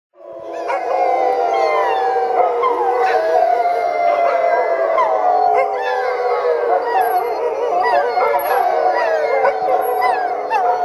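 A pack of sled dogs howling together, many voices overlapping in long gliding howls with shorter yips mixed in. It swells in over the first second, then holds steady and loud.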